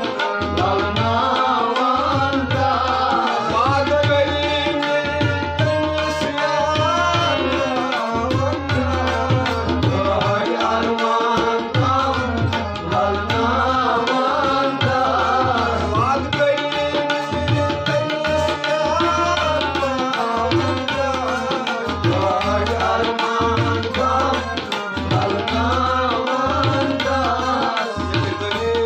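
Harmonium playing a folk melody over a steady hand-drum rhythm, an instrumental passage between sung verses.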